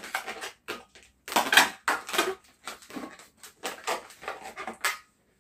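Latex modelling balloons squeaking and rubbing against each other and against hands as they are gripped, bent and twisted. The sound comes as a quick, uneven series of short scratchy squeaks with brief gaps between them.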